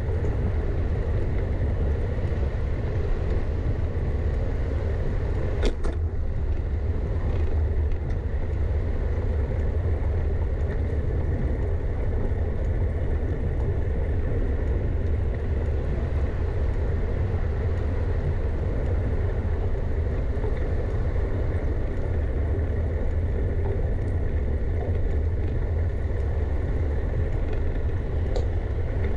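Steady low rumble of a bicycle ride along city streets, with one sharp click about six seconds in.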